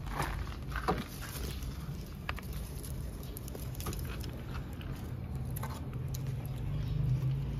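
Wood fire in a metal stove's firebox being stoked with iron tongs: scattered crackles, clicks and knocks of burning wood shifting and metal touching metal, over a low steady hum.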